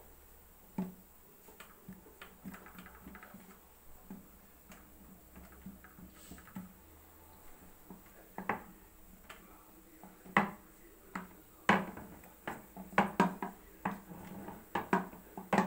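Hands patting and pressing a piece of pastry dough on a starch-dusted wooden table, then a wooden rolling pin flattening it: scattered soft taps and knocks, louder and more frequent in the second half.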